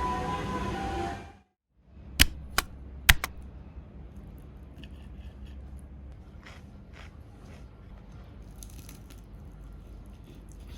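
Background music fades out, then several sharp clicks in quick succession, four within about a second, followed by faint scattered ticks and rustling of small objects being handled at close range.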